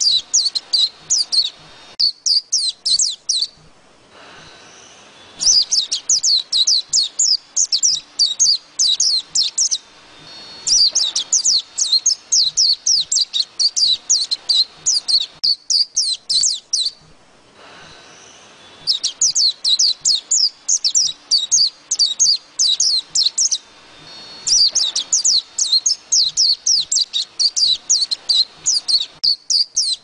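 A white-eye singing: repeated runs of fast, high warbling notes, each from about one to six seconds long, with short pauses between.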